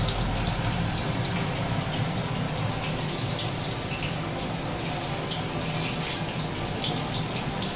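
Mixed vegetable pakoras deep-frying in hot rice bran oil in a large kadhai: a steady sizzle with small scattered crackles.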